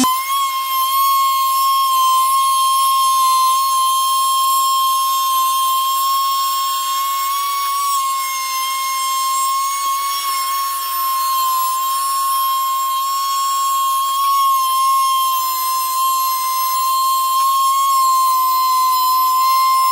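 Small handheld electric cutting tool running with a steady high-pitched whine, its pitch wavering slightly, as it cuts through the sidewall of a studded winter tyre.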